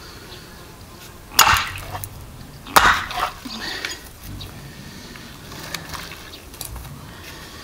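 An axe chopping into a pig's head on a wooden stump, at its jaw: two sharp blows about a second and a half apart, with a few softer knocks and handling sounds after.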